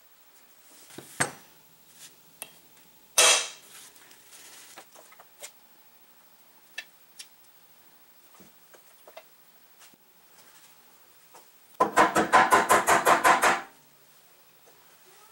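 Metal clicks and clatter as parts of an Atlas benchtop horizontal milling machine are handled and fitted by hand: a few scattered knocks, a louder clatter about three seconds in, then a rapid run of about a dozen clicks, some eight a second, near the end.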